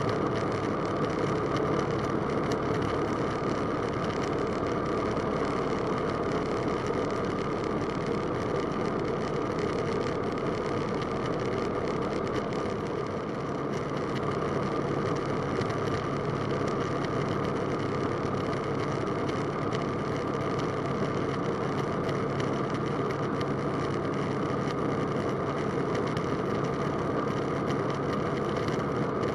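Roland Aircraft Z602 ultralight's engine and propeller running steadily in flight, heard from inside the cockpit. About 13 seconds in, the level dips briefly and a low steady tone joins the engine noise.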